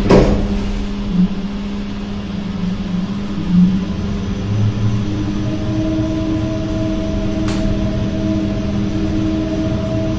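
KONE traction lift car travelling down: a steady hum of the lift drive and car, joined about five seconds in by higher steady tones. A thump at the very start and a single short click about seven and a half seconds in.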